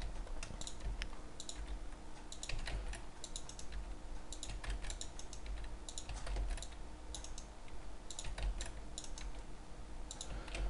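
Irregular clicking of a computer mouse and keyboard keys during work at a computer, over a low steady hum.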